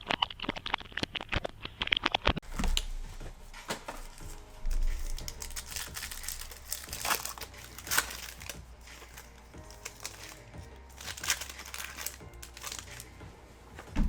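Plastic wrapping crinkling and tearing as a sealed trading-card blaster box and its packs are opened: a dense run of crackles in the first couple of seconds, then scattered crinkles. Music plays in the background.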